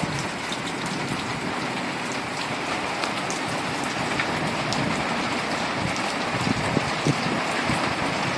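Heavy rain falling steadily, a dense hiss of drops hitting the ground and surfaces, growing slightly louder toward the end.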